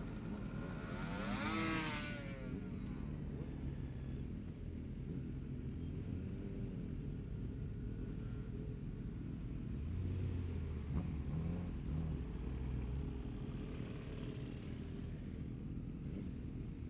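Road vehicles driving past one after another over a steady low engine rumble. The closest pass, about a second in, is the loudest; another louder stretch of engine comes around ten to thirteen seconds in.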